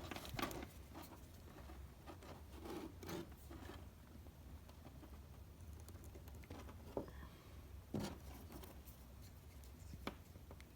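Faint handling noises: scattered clicks and scrapes, with sharper clicks about seven, eight and ten seconds in, over a steady low hum.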